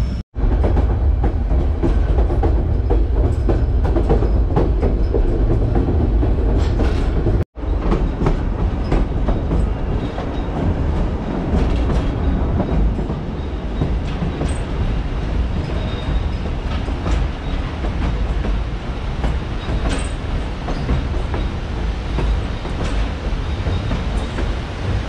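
White Pass & Yukon Route narrow-gauge train running, heard from an open platform between the cars: a steady rumble with scattered wheel clicks over the rail joints, cut off for an instant twice.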